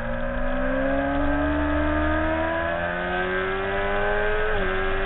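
Motorcycle engine pulling hard out of a corner, its pitch rising steadily as it accelerates, then dropping suddenly about four and a half seconds in with an upshift before pulling again.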